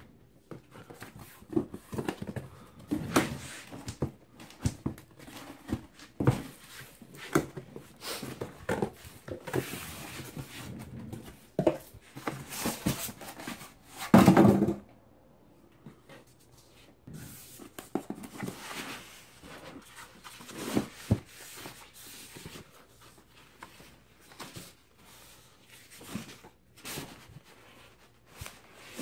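Handling and unpacking of a long cardboard soundbar box, with irregular scrapes, knocks and rustles of cardboard, foam and tissue-paper packing. The loudest scrape comes about halfway through.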